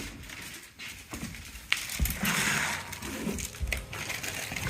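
Handling noise: rustling and scraping, with a thump at the start and a few sharp clicks or knocks, as the phone is moved around under the dishwasher to check for leaks.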